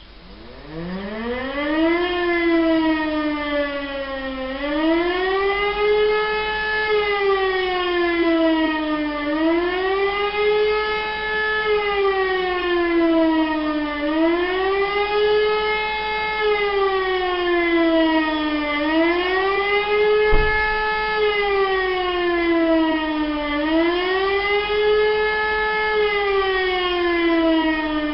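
Civil-defence siren spinning up about half a second in, then wailing up and down in an even rise and fall roughly every five seconds. This is the German public warning signal, the 'Warnung der Bevölkerung' alarm for a disaster. A brief low thump comes a little past two-thirds of the way through.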